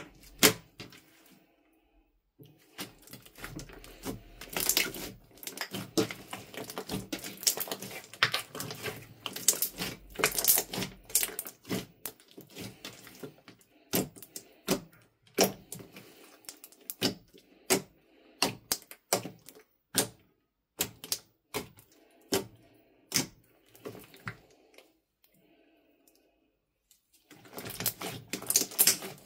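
Thick green slime being poked, stretched and kneaded by hand, giving off rapid crackles and pops from the air pockets trapped in it, with soft squelches underneath. The popping is dense for most of the time, with quiet pauses near the start and near the end.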